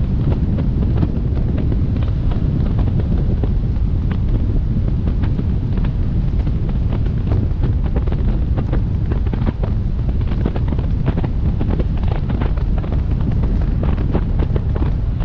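Wind buffeting the microphone of an action camera mounted on the roof of a moving car: a heavy, steady low rumble. Irregular sharp ticks of raindrops striking the camera run through it, more often in the second half.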